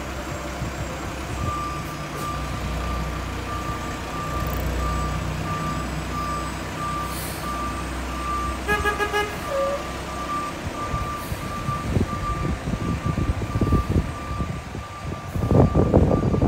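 Mack LR garbage truck's diesel engine running steadily at idle, with a backup alarm beeping at an even pace from about a second and a half in. From about ten seconds in the engine rises and falls in uneven surges as the truck moves off, loudest near the end.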